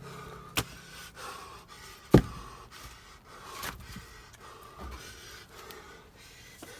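Two short wooden knocks, the louder one about two seconds in, with faint clatter between, from split ash firewood being handled between splitting strikes.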